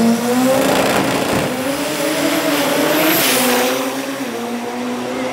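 Turbocharged Toyota 3RZ four-cylinder drag car launching hard and accelerating down the strip. Engine pitch climbs in steps, with a drop at each gear change, and the sound fades slightly as the car pulls away.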